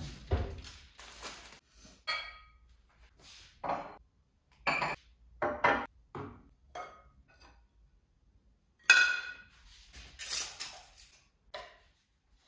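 Dishes, glassware and cutlery clinking and knocking as breakfast is set out: a string of separate, irregular knocks and clinks, several ringing briefly, the loudest clink about nine seconds in.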